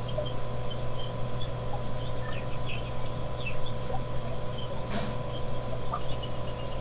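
Outdoor ambience through a steady low hum: faint, repeated high chirps of small birds, and a single sharp click about five seconds in.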